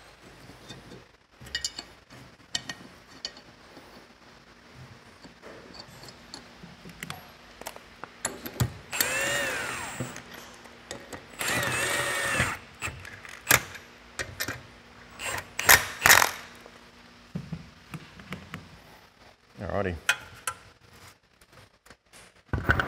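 Cordless drill-driver running the brake rotor's retaining screws into a rear wheel hub: two short whirring runs a second or so apart, each rising and then falling in pitch. Around them come clacks and knocks of the steel hub and rotor being handled, the loudest about two-thirds of the way through.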